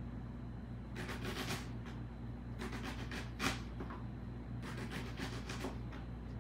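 Kitchen knife slicing a red onion into thin rings on a cutting board: three runs of quick cutting strokes, each about a second long, with short pauses between them.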